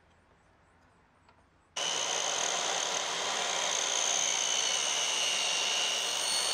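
Makita 10-inch sliding miter saw, fitted with an 8-inch metal-cutting blade, starts abruptly about two seconds in and runs loudly and steadily with a high whine.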